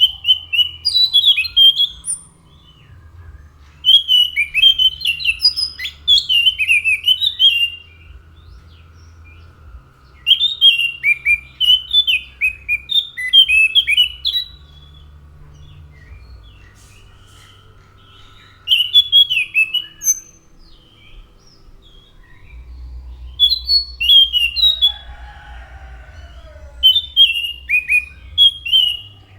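Anis macan thrush singing: six phrases of quick, chirpy, up-and-down notes, each lasting one to four seconds, with short pauses between them.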